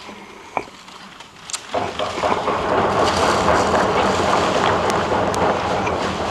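Audience applauding: the clapping starts about two seconds in and swells into loud, steady applause.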